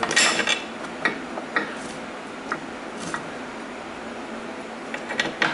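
A few light metallic clicks and small scrapes as steel bolts are handled and pushed into the holes of a mower deck by hand, with a short rustle of handling at the start.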